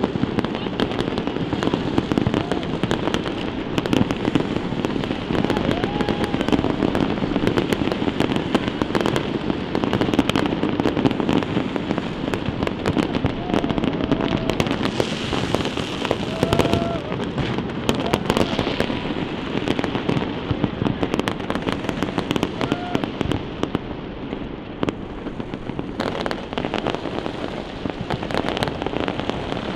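Fireworks display going off continuously: many rapid crackling bangs and pops layered over one another, with a crowd's voices underneath.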